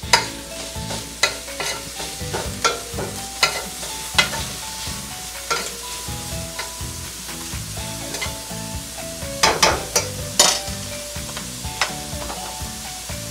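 A utensil stirring and scraping shredded chicken breast and onion in a stainless steel frying pan, clicking against the metal at irregular moments, with the food sizzling. A quick run of louder clicks comes about three-quarters of the way through.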